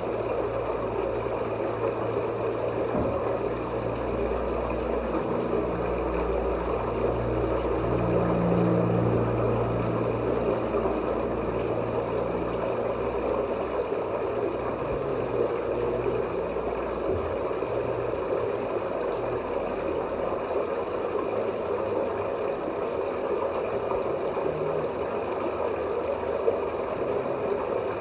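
Steady, muffled rush of moving water heard underwater, with a low hum beneath it that weakens after about twenty seconds.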